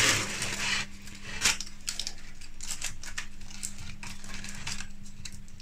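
Aluminium foil crinkling and rustling as string is wound around a foil-covered pudding basin, loudest in the first second, then softer scattered crinkles with one sharper click about a second and a half in. A faint steady hum sits underneath.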